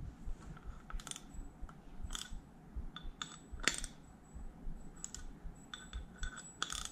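Light metallic clicks and taps at irregular spacing, with a quick cluster near the end, from a bicycle crankset, chainring and tools being handled during a bottom bracket and crank install.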